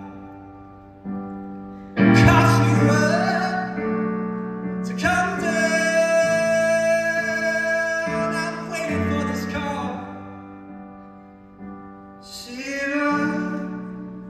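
Live male singing to guitar: chords struck twice and left to ring, with one long held note in the middle.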